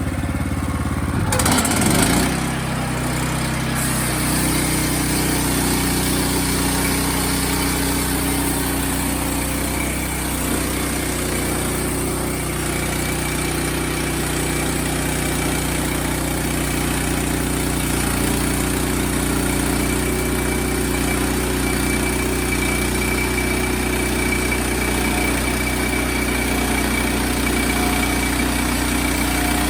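Engine of a Wood-Mizer portable sawmill running steadily while a log is canted, with a brief louder noisy stretch about two seconds in, after which the engine note settles slightly lower.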